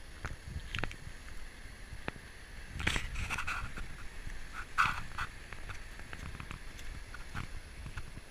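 Footsteps scuffing and crunching on a rough gravelly lane, with scattered small knocks and clicks, and two louder short sounds about three and five seconds in.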